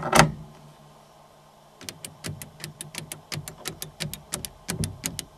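A rapid, uneven run of sharp clicks, about six a second, starting a couple of seconds in over a steady low electrical hum, with two louder clicks right at the start.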